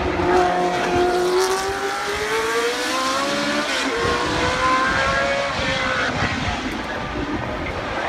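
Historic Formula 1 car's Cosworth 3.0-litre V8 accelerating out of a corner, its note rising steadily, with an upshift about four seconds in. The note then climbs again and eases off near the end.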